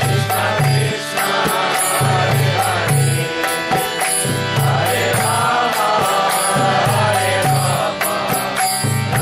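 Kirtan: voices chanting a mantra to a steady drum beat, with hand cymbals ticking in time.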